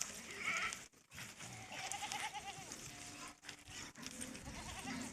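Goats bleating in a few separate calls; the longest, about two seconds in, has a wavering, quavering pitch.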